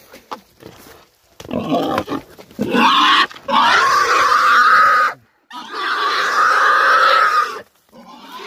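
Pig squealing loudly in distress as it is dragged on a rope and resists: a few short grunts, then two long squeals of about two seconds each with a brief break between them.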